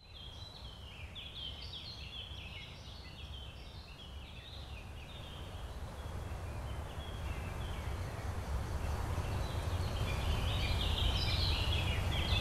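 Birds chirping in short rapid phrases over a low rumbling noise that slowly grows louder. The chirping thins out in the middle and picks up again near the end.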